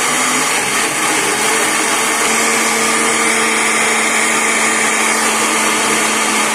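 Electric jug blender running at speed, grinding mango chunks and sugar into pulp. A steady, even whirr, with a steady hum tone joining it about two seconds in.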